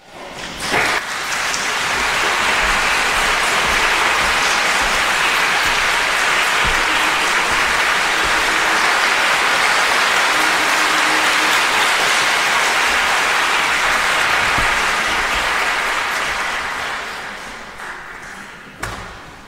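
Concert-hall audience and orchestra applauding, a dense steady clapping that dies away near the end, with a single knock just before it stops.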